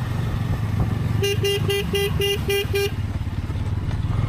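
A vehicle horn sounds seven short beeps in quick succession, about four a second, starting a little over a second in. Underneath runs the steady sound of a Bajaj Pulsar N250 motorcycle's engine and the road.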